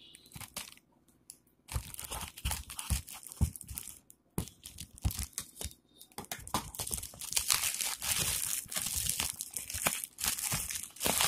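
Plastic courier wrapping being cut and torn open by hand: crinkling plastic and tearing in irregular bursts, starting about two seconds in and becoming nearly continuous over the last few seconds.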